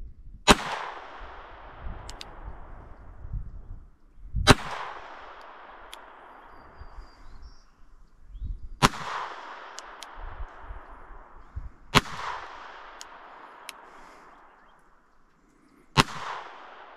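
NAA Mini revolver firing .22 Short rounds: five single shots about three to four seconds apart. Each is a sharp crack with an echo trailing off over a second or two, and there are a few faint clicks between the shots.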